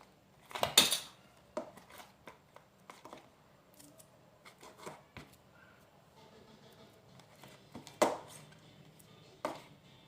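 Spoon stirring and scraping thick slime in a container: scattered clicks and knocks, with a louder scrape about a second in and a sharp knock near the end.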